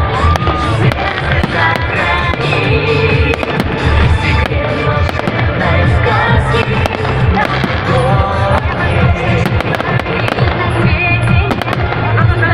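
Fireworks bursting and crackling in many rapid sharp bangs, over loud music with a steady beat.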